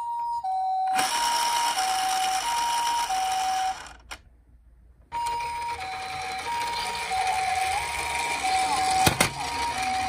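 Toy ambulance's electronic two-tone 'pee-po' siren, a high and a low note alternating over a steady hiss. It stops for about a second a little under four seconds in, then starts again, with a sharp click near the end.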